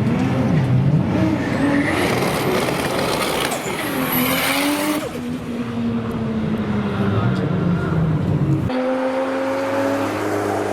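Toyota Supras' 2JZ straight-six engines revving and running in short clips cut together, the pitch swinging up and down at first, with a dense rushing noise from about two to five seconds in. The sound changes abruptly about five and nine seconds in, ending on a steadier engine note.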